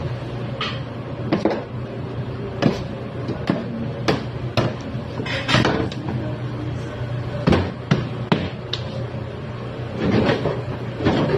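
Irregular knocks and clunks of things being handled and set down on stainless steel galley counters and trays, a dozen or so sharp hits spread unevenly, over a steady low hum.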